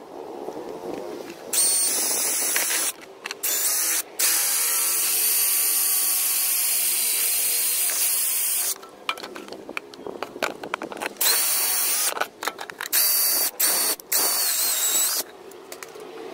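Cordless drill running in repeated bursts as it bores holes through a thin clear plastic box: a steady high-pitched motor whine that starts and stops, the longest run lasting about four and a half seconds in the middle, with several short bursts near the end.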